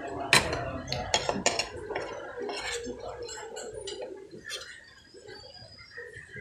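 A metal fork and spoon clink and scrape against a ceramic plate while leftover rice is scooped up. There are several sharp clinks in the first two seconds and another near the three-second mark, then softer scraping.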